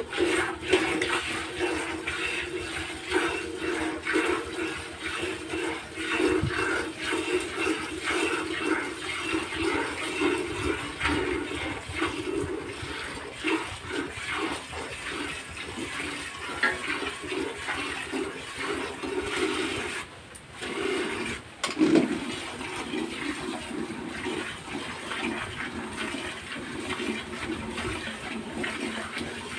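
Milk squirting from a cow's teats into a metal bucket during hand milking, in quick rhythmic squirts, with a short break about twenty seconds in.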